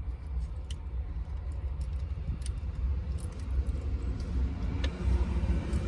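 A few faint light clicks of small switch-panel parts and screws being handled, over a steady low rumble.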